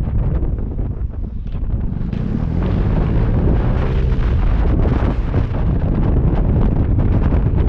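Wind buffeting the microphone on a moving Vespa scooter, easing briefly about a second in. The scooter's engine note is faintly audible underneath, rising and falling in pitch around the middle.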